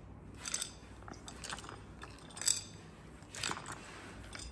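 Light clicks and clinks about once a second, the sharpest about halfway through, as a Mercedes-Benz S-Class W223 air suspension strut is handled and turned over.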